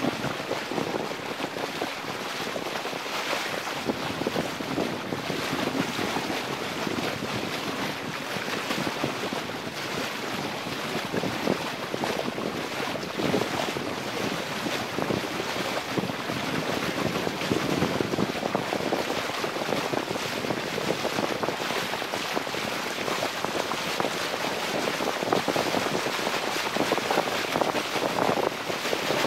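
Wind buffeting the microphone and water rushing along the hull of a Lancer 25 sailboat under sail: a steady rushing noise that swells and eases with the gusts.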